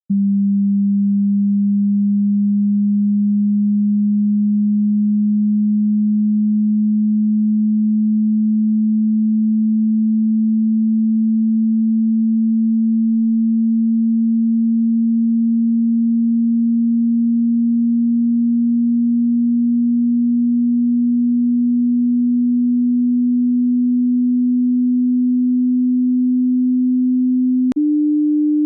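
Pure sine test tone used for tinnitus matching. It is a single low tone that rises very slowly in pitch, then a click near the end as it steps up to a slightly higher tone.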